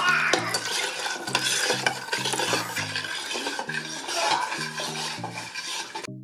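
Metal spoon stirring and scraping around a stainless-steel saucepan with many small clicks against the pan. Almond milk is poured in from a bottle at the same time.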